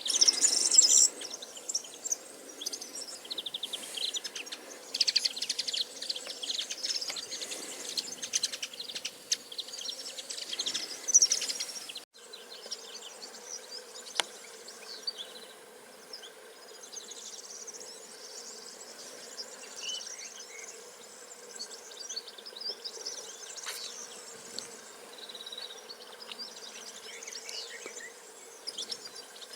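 Small birds chirping and trilling in rapid high runs, busiest for the first dozen seconds. Then a sudden cut, after which the chirps are fainter and more scattered over a faint steady background.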